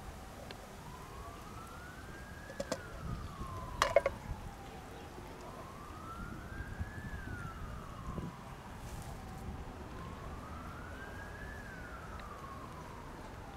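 Emergency vehicle siren wailing, its pitch rising and falling slowly about every four and a half seconds, three times over. A couple of sharp clicks stand out about three and four seconds in, the second the loudest sound.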